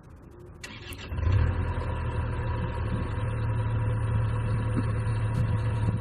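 Excavator diesel engine cranked by the starter and catching about a second in, then running at a steady idle.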